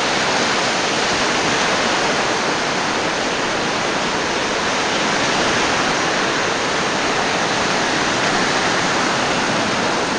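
Steady rush of surf breaking along a sandy beach, an even wash of noise with no distinct waves standing out.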